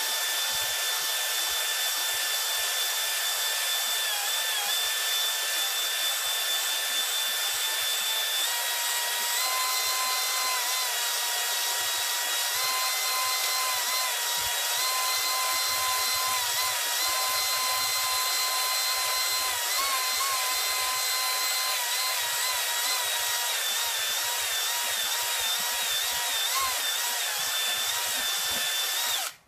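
Electric drill spinning a stone cylinder hone inside a cast-iron bore of a Chevy small-block 350 block: a steady motor whine over a grinding, scraping hiss as the stones cut. The whine steps up in pitch about nine seconds in and wavers with the trigger, then stops suddenly near the end. The honing breaks the glaze and leaves a crosshatch so the rings will seat.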